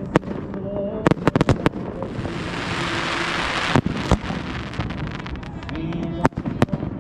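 Professional fireworks display: a rapid string of sharp bangs and reports, with a loud rushing hiss for about two seconds in the middle. Voices can be heard underneath.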